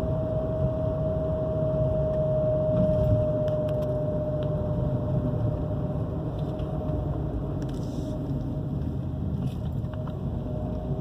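Chevrolet Onix running with a steady drone: a low rumble under a clear whining tone that sinks slightly in pitch and fades out about two-thirds of the way through. The owner likens the drone to a worn water pump bearing, and a new timing belt has not cured it.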